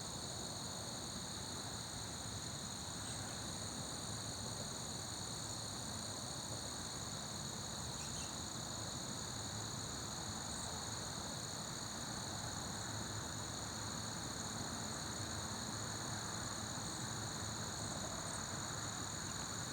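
Steady chorus of crickets trilling without a break, high and continuous, over an even background hiss.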